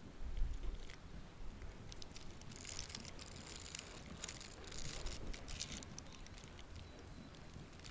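Hooves of a grey Arab horse trotting on an indoor sand arena surface, a patter of hoof strikes and scattered footing, loudest from about three to six seconds in as the horse passes close. A low rumble on the microphone near the start.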